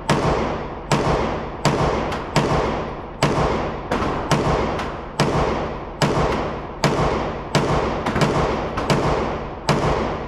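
9mm pistol fired at a steady pace, about fourteen shots roughly three-quarters of a second apart. Each shot echoes and fades off the walls of an indoor range.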